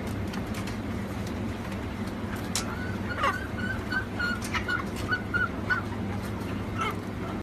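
Chickens calling in a quick run of short, repeated clucks, about three a second, with one falling squawk among them, over a steady low hum.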